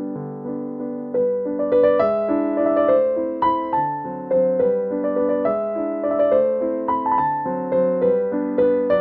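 Background piano music: a melody of single notes over sustained chords, the notes coming faster from about a second in.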